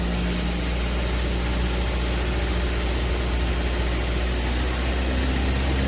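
Ford Escape's turbocharged 1.6 EcoBoost four-cylinder engine running steadily with a low hum, while its rebuilt 6F35 automatic transmission, fitted with a 2.0 EcoBoost torque converter, is under test.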